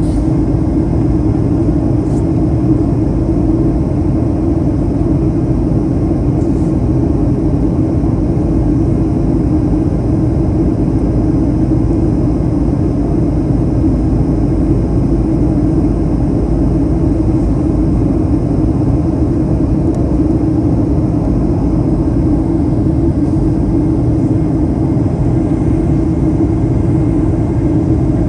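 Steady cabin noise inside a Boeing 737-800 airliner on approach: an even rumble of the CFM56 turbofan engines and the airflow, with a strong drone in it.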